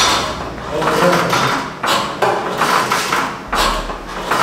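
People talking, with the words indistinct.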